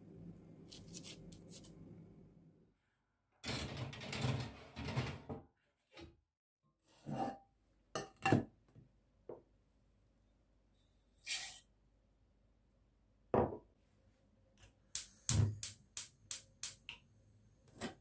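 Kitchen handling sounds: a faint hum at first, then a stretch of scuffing, scattered knocks and clinks of a stainless steel pot and dishes on the countertop, and a quick run of about six sharp clicks near the end.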